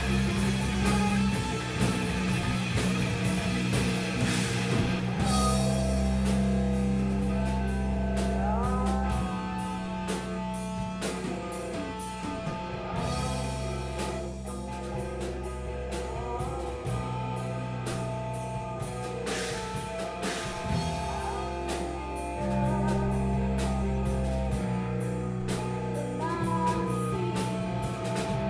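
Rock band playing live: electric guitars and drum kit over sustained bass notes that change every few seconds, with lead vocals sung into a microphone.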